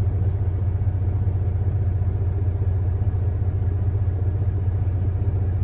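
International log truck's diesel engine idling steadily, a low even rumble heard from inside the cab.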